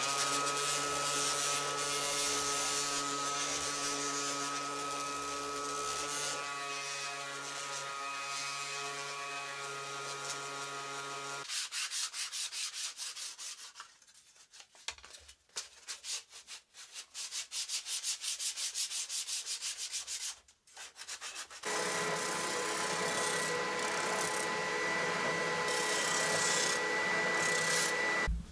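Power sanding of wooden parts. For about the first eleven seconds a cordless palm sander runs against the wood, a motor hum under a sanding hiss. Then comes rapid, even hand-sanding with a sheet of sandpaper. About three quarters of the way in, a benchtop bobbin sander runs with a high steady whine as a plywood part is worked against its spinning drum.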